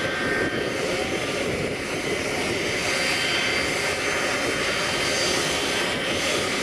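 The Shockwave jet truck's three jet engines running steadily while the truck stands still: a continuous rushing noise with a faint high turbine whine, with no afterburner pops.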